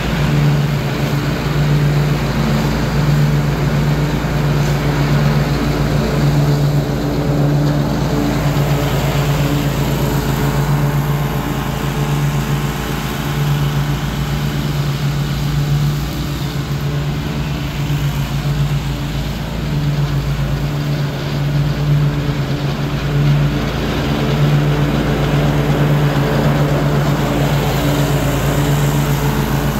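Ariens Ikon Envy zero-turn riding mower's engine running steadily while mowing grass, a constant low hum that dips slightly about two-thirds of the way through.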